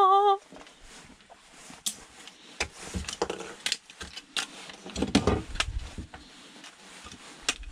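A cordless electric screwdriver's motor whirs, its pitch wobbling, and stops about half a second in. Then come scattered clicks and taps of a plastic hair dryer casing being handled and pulled apart, with a clattering rattle about five seconds in.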